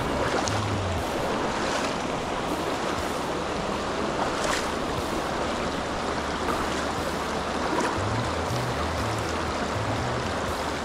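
Shallow, rocky stream running and rippling over stones close to the microphone, a steady rush of water. Background music with a low bass line comes in during the first second and again near the end.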